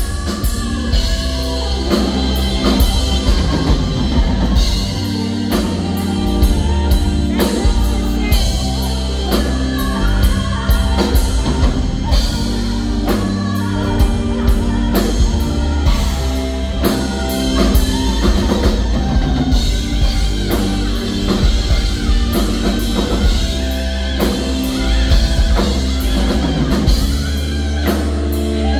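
Live rock band playing a slow ballad with drum kit, bass, guitar and keyboards, under a female singer's wordless, soaring vocal.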